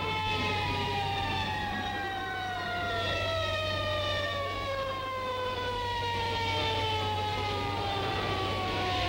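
Fire engine siren sounding one long wail that falls slowly in pitch, over a steady low hum.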